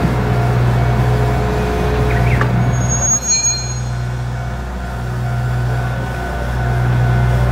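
Diesel engine of the Kominato Railway's steam-locomotive-style Satoyama Torocco locomotive running steadily as it hauls its coaches, a low, even drone.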